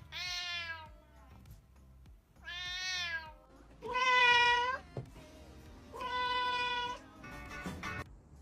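A cat meowing four times, each call about a second long with short pauses between.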